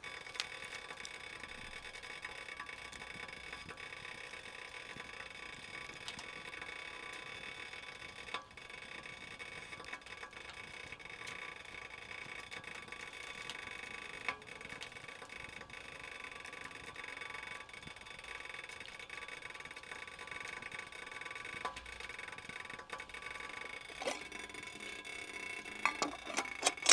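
Small wood stove with a steel pot of cheese fondue on it: a steady hiss with a few light taps, and a cluster of sharper taps near the end.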